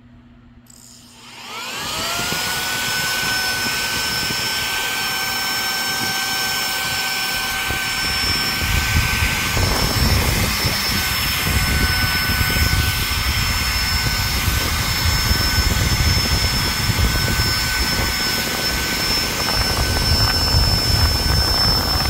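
Saker 3-in-1 cordless mini handheld vacuum switched on about a second in: its motor spins up in a rising whine that settles into a steady high whine over rushing air. From about eight seconds in, a rougher low rumble comes and goes as the crevice nozzle is worked over surfaces.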